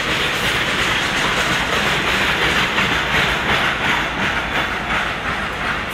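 Freight train rolling past at speed, its wagon wheels clattering rhythmically over the rail joints under a steady rumble.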